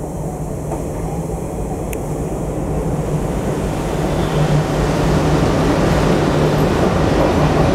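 WDM-3A diesel locomotive approaching with its engine running, a steady low drone that grows gradually louder as it nears.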